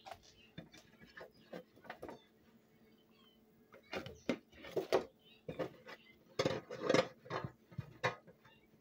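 Plates knocking and clattering lightly against each other and the counter in irregular clusters, loudest in the second half.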